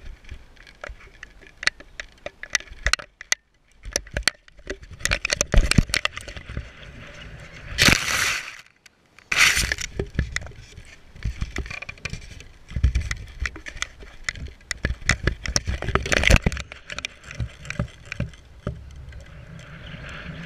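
Handling noise from a GoPro mounted on a foam toy plane being carried through tall grass: many sharp clicks and knocks, with grass brushing against it and two loud rustles about eight and nine and a half seconds in.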